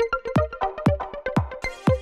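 Electronic background music with a steady kick-drum beat, about two beats a second, under short synth notes.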